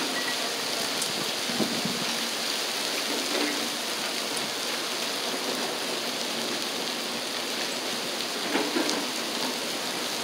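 Heavy downpour pouring steadily onto pavement and parked cars, a dense, even hiss with a few light knocks.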